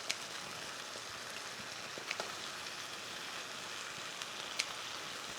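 Pan of onions, coconut cream and turmeric sizzling steadily over the heat, with a few sharp ticks scattered through it.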